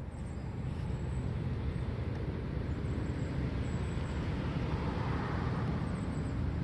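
Steady outdoor background noise: a low rumble with a hiss over it, as of road traffic in the distance.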